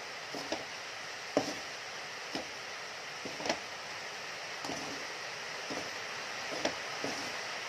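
Wooden spatula scraping and knocking against a metal wok as sugar-coated candied ginger is tossed to dry the sugar, in irregular strokes about once a second, one sharper knock about a second and a half in. Under it a steady hiss of heavy rain.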